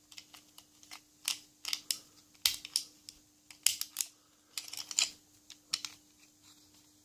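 Lever-lock picking tools scraping and clicking inside a Lane 1000 two-lever lock: irregular small metallic clicks as the levers are worked with tension held on the bolt.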